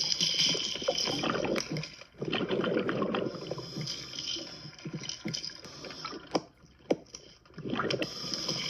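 Scuba regulator breathing heard underwater: bubbling, gurgling rushes of exhaled air, with a short pause about two seconds in and a longer lull near seven seconds.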